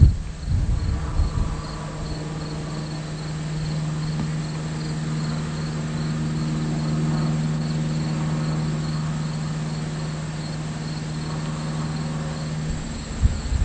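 Crickets chirping in an even, steady rhythm under a steady low hum that stops near the end.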